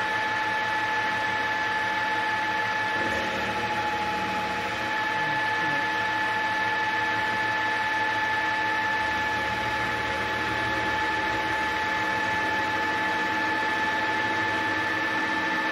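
Boxford 280T metal lathe running on its single-phase variable-speed inverter: a steady high-pitched whine from the motor and drive over a mechanical hum, while the tool takes the first facing cut on a small workpiece.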